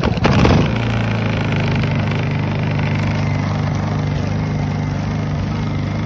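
Portable inverter generator's small four-stroke engine surging up in the first half second, then running steadily at a constant speed with its throttle on.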